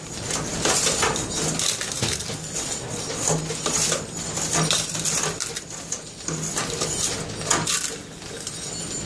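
Metal shavings and scrap clattering and jingling as they are lifted with a long-handled tool and tipped into a metal-lined bucket, in repeated irregular rattles.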